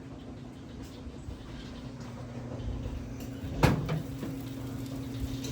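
A single sharp knock about three and a half seconds in, over a steady low hum.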